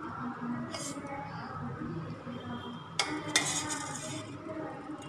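A steel spoon clinking against the side of a stainless-steel pot as dumplings are scooped out of syrup: one clink about a second in, then two close together about three seconds in.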